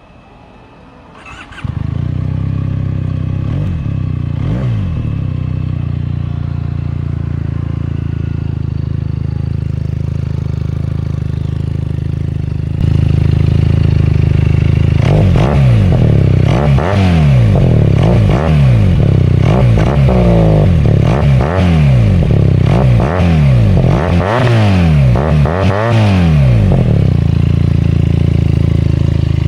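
Benelli SRK 400's parallel-twin engine, fitted with a replica Akrapovic slip-on exhaust, starts about a second and a half in and idles. The idle rises partway through, then the throttle is blipped a dozen or so times in quick succession before the engine settles back to a steady idle near the end.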